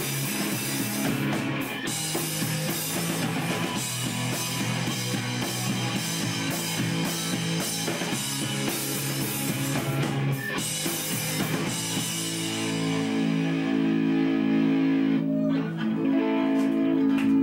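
Live rock band playing an instrumental passage with distorted electric guitars from a Les Paul-style guitar and a drum kit with crashing cymbals. In the last few seconds the cymbals fade and the guitars hold long, ringing chords.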